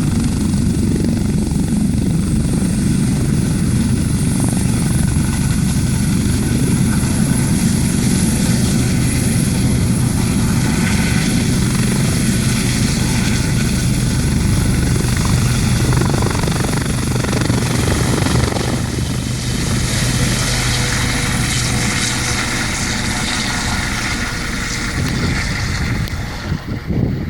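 U.S. Coast Guard turbine helicopter running at close range: a loud, steady rotor rumble with a thin high turbine whine. The sound drops away sharply near the end.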